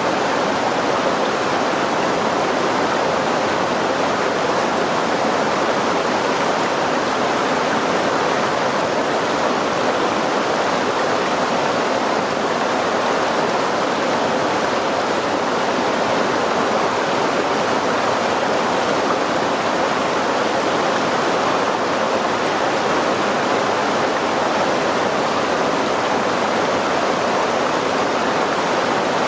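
River running steadily: a continuous, even rush of flowing water with no breaks or changes.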